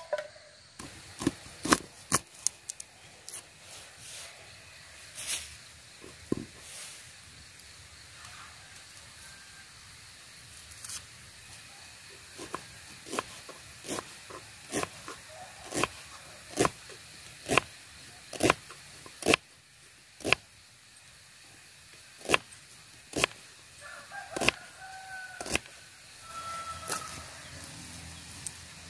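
Small kitchen knife chopping vegetables on a wooden cutting board: a run of sharp taps, roughly one a second. A rooster crows in the background near the end.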